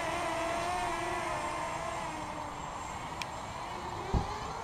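QAV250 racing quadcopter's motors and propellers buzzing in flight, the pitch wavering up and down as the throttle changes. A short low thump about four seconds in.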